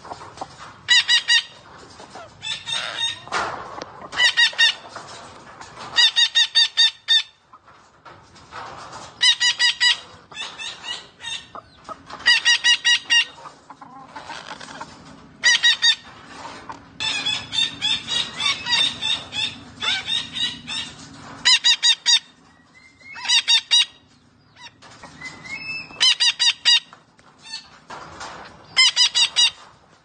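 A green parrot calling in short bursts of rapid, clucking chatter notes, a burst every two to three seconds.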